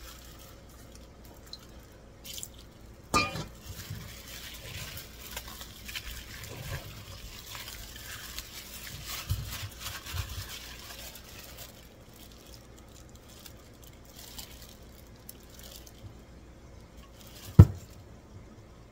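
Gloved hand mixing thick pakora batter in a stainless steel bowl: soft wet squelching and stirring, with a sharp knock about three seconds in and a louder one near the end.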